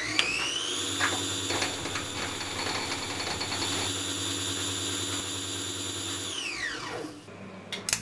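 High-speed electric power-tool motor: a high-pitched whine that spins up, runs steadily for about five seconds, then winds down near the end.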